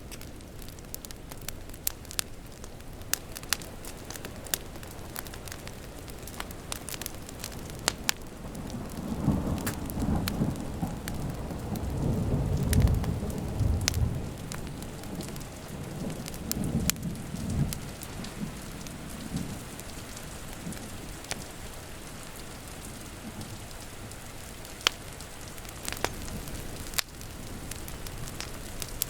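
Wood fire crackling with a steady patter of rain outside. About a third of the way in, a long roll of thunder rumbles in, peaks near the middle and fades away over about ten seconds.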